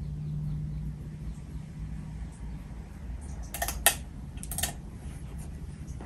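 50-inch Casablanca Delta II ceiling fan with a Samsung K55 motor, running on freshly replaced bearings with a steady low hum. Two quick clusters of sharp clicks come a little past halfway.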